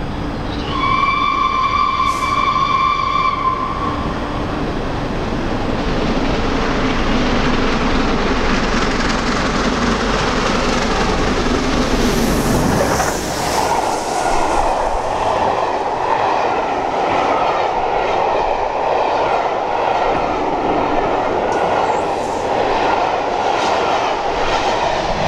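Peppercorn A1 Pacific steam locomotive 60163 Tornado sounds its whistle, one steady note for about three seconds, then passes at speed about halfway through. Its Pullman carriages follow, rolling by with steady wheel noise and rail-joint clicks.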